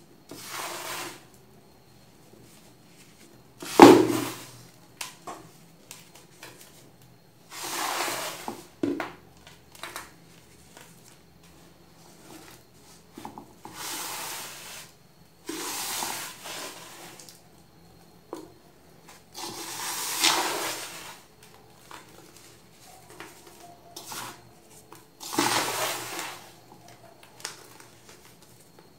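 Hands scooping, rubbing and squeezing clumpy baking soda in a metal bowl: soft crunching, crumbling bursts about a second long every few seconds. One louder thump, a hand or the powder knocking the bowl, comes about four seconds in.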